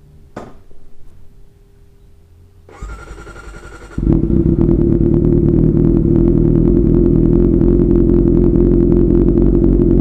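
Kawasaki ZX-25R's 250 cc inline-four cranked by its starter motor for about a second, then catching about four seconds in and idling loudly and steadily through a DX Generation Pro Race full-system aftermarket exhaust: a cold start to warm the engine up. A single click comes about half a second in.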